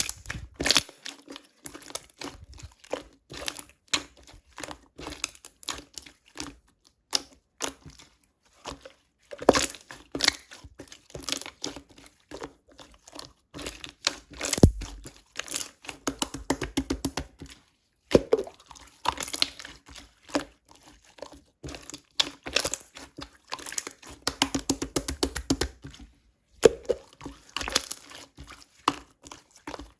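Clear slime being squished, pressed and stretched by hand, giving dense, irregular sticky crackles and small popping clicks, with a few brief pauses.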